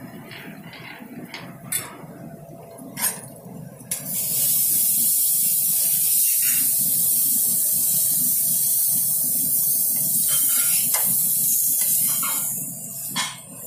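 A few metal clinks of utensils on a pan, then about four seconds in a loud, steady sizzle of prawns frying on a hot flat-top griddle. The sizzle dips briefly near the end.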